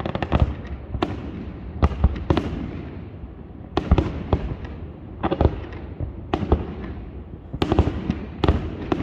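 Fireworks display: aerial shells bursting in irregular succession, about a dozen sharp bangs, each fading out in an echo, with clusters of smaller pops between them.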